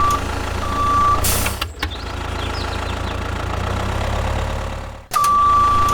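Truck engine running with a steady low rumble, with single-tone reversing beeps at the start, just before a second in and near the end, and a short hiss of air about a second and a half in.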